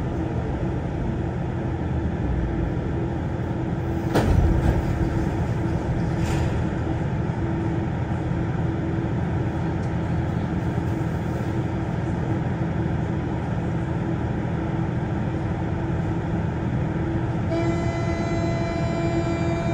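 Siemens VAL 208 metro car standing at a station with its onboard equipment humming steadily, a single knock about four seconds in. Near the end a steady warning tone starts up: the door-closing signal before departure.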